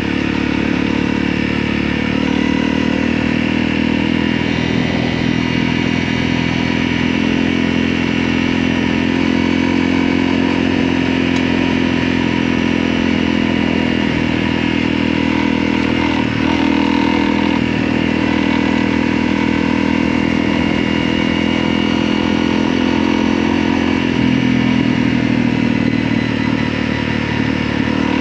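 Motorcycle engine running steadily under way, heard from the bike while riding.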